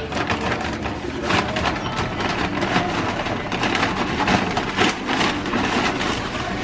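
Brown paper shopping bag being rummaged and crinkled, an irregular run of papery crackles and rustles.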